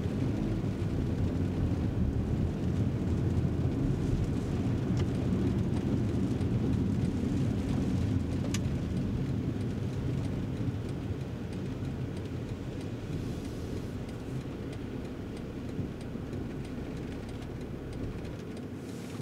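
Cabin sound of a BMW M340i Touring's 3.0-litre straight-six at low city speed, with tyre noise on a wet road, a steady low rumble. It grows quieter through the second half as the car slows almost to a stop.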